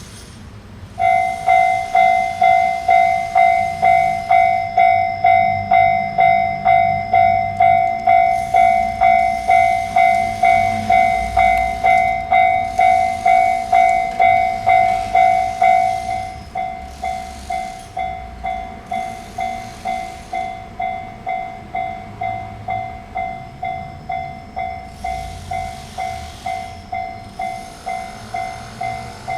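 Japanese level-crossing warning bell ringing, a pitched ding repeated about twice a second. It starts suddenly about a second in and drops to a noticeably quieter level about halfway through. A low rumble of train noise runs underneath.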